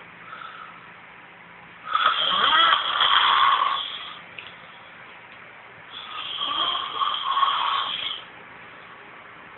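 A sleeping man snoring: two long, loud snores about four seconds apart, with quiet pauses between breaths.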